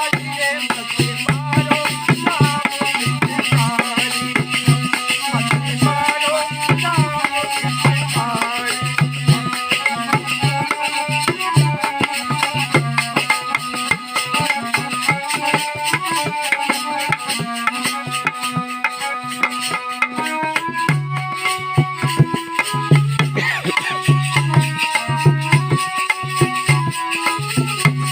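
Instrumental Indian-style music: a hand drum keeps a steady repeating rhythm under a melody that moves in stepped notes.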